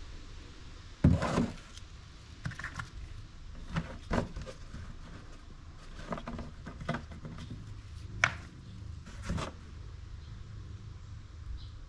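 A plastic motor-oil jug and other small items being handled on a workbench. It gives a string of separate knocks and clunks, the loudest about a second in, over a low steady hum.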